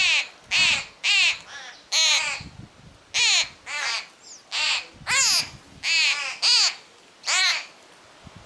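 A young bird begging for food with loud, harsh, caw-like calls, about two a second, each a short arching cry; the calls stop about a second before the end.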